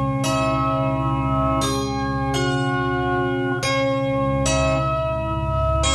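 Music soundtrack: about six bell-like notes struck at uneven intervals, each ringing on into the next, over a steady low drone.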